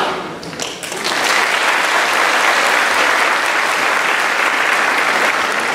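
Audience clapping: a few scattered claps, then steady applause from about a second in.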